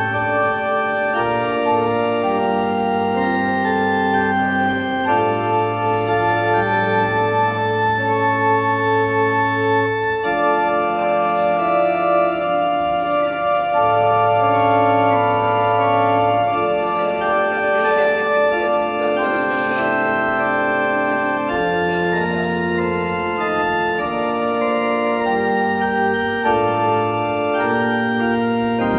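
Organ music: slow, held chords that change every second or two, played as closing music at the end of the service.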